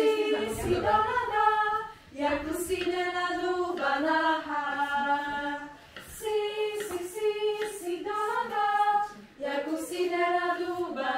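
Choir singing a cappella, mostly in women's voices, in long held phrases with short breaths between them about every two to four seconds.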